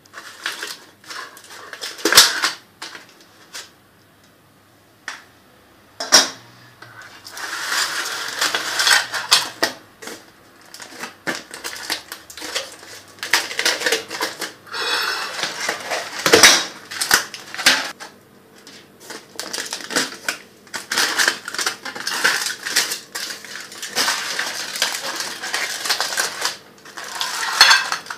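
Handling of a metal springform cake pan and its foil-covered base: scattered clicks and knocks mixed with crinkling foil.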